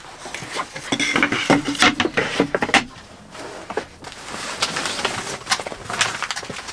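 Clattering and clinking of things being rummaged through and handled, a quick run of sharp knocks and clicks with some rustling of a bag.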